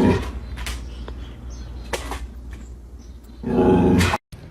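Dog vocalising: a brief pitched sound at the start, then a longer, louder one about three and a half seconds in, with faint clicks between.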